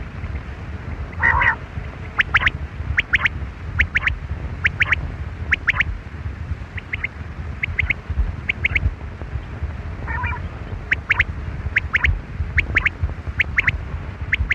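Quail calling: sharp high chirps in quick groups of two or three, repeating about once a second, with two harsher rasping calls, one near the start and one about ten seconds in.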